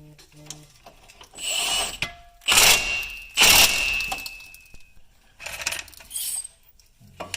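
Impact wrench with a 16 mm socket running in and tightening the drive axle's flange bolts to the transmission, in several short bursts, the two loudest in the middle.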